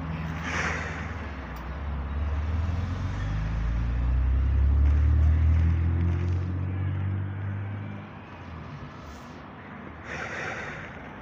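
A car driving past on the street, its engine rising in pitch as it speeds up, loudest about halfway through and fading away after; short hissing bursts come just after the start and again near the end.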